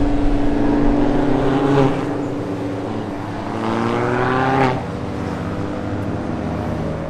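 Kia K3 GT race car's 1.6-litre turbocharged four-cylinder engine accelerating past, the engine note climbing in pitch and then dropping suddenly about four and a half seconds in, as on an upshift of its seven-speed dual-clutch gearbox.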